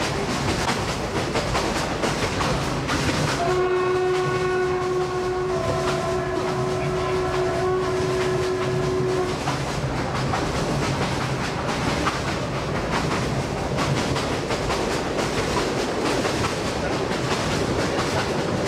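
Passenger train running at speed, heard from an open carriage door: a steady noise of wheels on the track. About three and a half seconds in, a train horn sounds for about six seconds, with a second note joining partway through.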